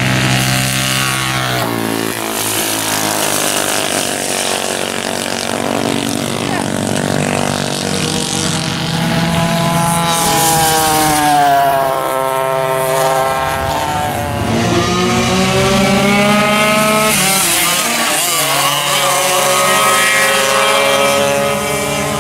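Engines of vintage racing go-karts running hard on track, with several karts heard in turn. Their pitch rises as they accelerate and sweeps down as each one passes, notably about two-thirds of the way in.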